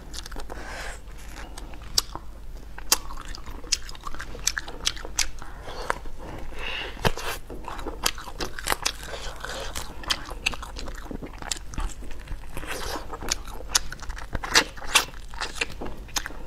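A person eating spicy braised duck tongue and neck: chewing and biting, with many sharp, irregular clicks and small crunches.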